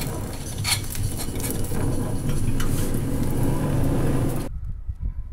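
Handheld gas blowtorch flame hissing steadily as it singes the bristles off a pig's head, with a couple of light clicks; the sound cuts off suddenly near the end.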